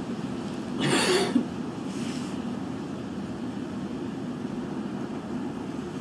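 A cigarette smoker's short, breathy exhale about a second in, ending in a small click, over a steady low background rumble.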